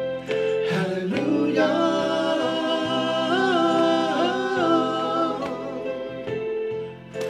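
Live gospel song: a man's lead voice sings and holds long notes with vibrato over sustained keyboard chords.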